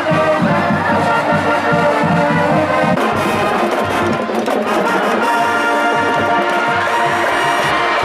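Music led by brass instruments, with an abrupt change about three seconds in where the low bass drops out.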